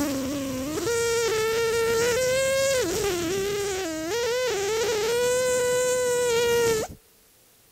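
A man humming one long, high breath through his nose, like a bee's buzz, as a yoga breathing exercise. The pitch steps up about a second in, wavers and dips a couple of times in the middle, then holds steady and stops suddenly near the end.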